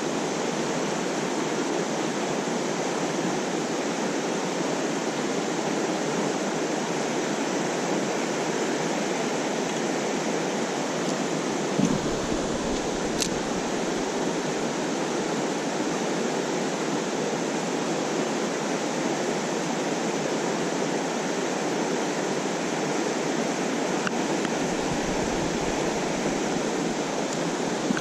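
Mountain stream water rushing steadily over rocks, an even wash of sound, with a brief low bump about twelve seconds in.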